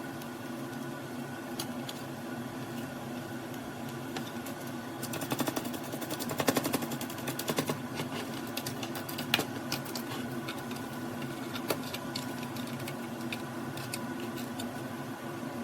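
Robot vacuum running with a steady motor hum; about five seconds in, a few seconds of rapid clicking and rattling, then scattered single clicks.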